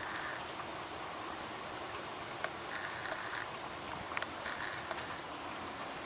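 Steady hiss of rain and gusting wind, with a few sharp drip taps.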